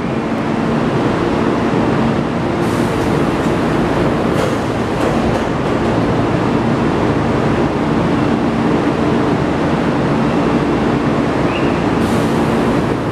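Keisei 3400-series electric train standing at the platform before departure, its on-board equipment running with a steady hum, with a few faint clicks.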